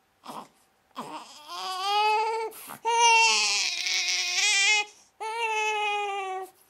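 Newborn baby crying: a short whimper, then three long wails with quick gasps for breath between them.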